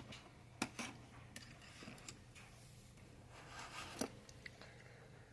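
Faint clicks and clinks of metal hand tools being handled and pulled from a tool pouch, with a few sharp ticks, the clearest about half a second in and about four seconds in, over a low room hum.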